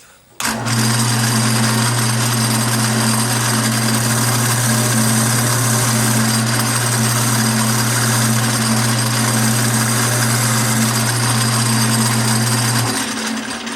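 Wood lathe switched on and running steadily with a strong motor hum, while a little more wood is taken off a turned lid. It is switched off near the end and the noise dies away.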